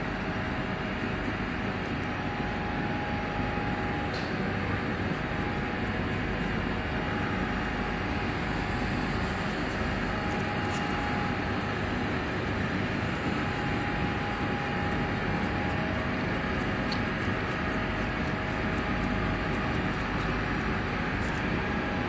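Steady mechanical background noise, like a running machine or ventilation, with a faint high whine that comes and goes and a few faint clicks.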